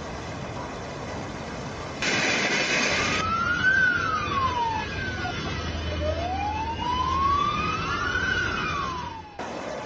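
An emergency-vehicle siren wailing in slow rises and falls of pitch over a steady rushing noise, with a loud burst of rushing noise about two seconds in.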